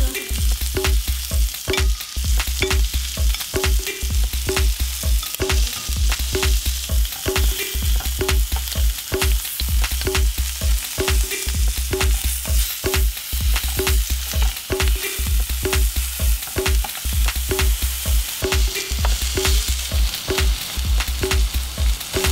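Red snapper pieces searing in a grill pan, sizzling steadily, under background music with a steady beat and a pulsing bass.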